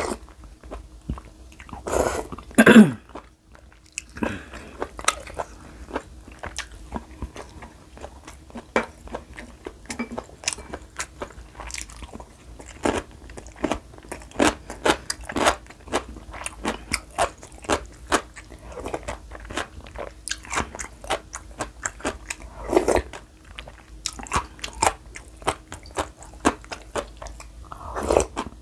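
Close-up eating sounds: slurps of spicy beef soup from a wooden spoon in the first few seconds. Then a long run of rapid, crisp crunching and chewing of cubed radish kimchi, with more slurps near the end.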